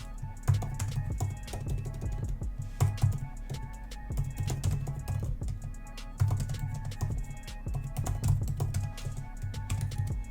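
Quick, irregular key clicks of typing on an Apple Magic Keyboard for the iPad Pro, over background music with a strong bass.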